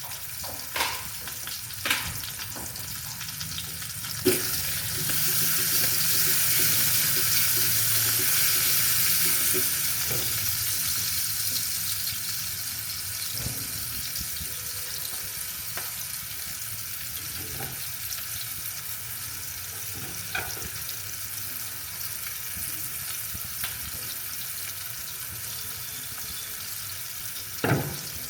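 Food sizzling in a hot pan, with a few sharp clinks of a utensil; the sizzle grows louder about four seconds in and eases back down after about ten seconds.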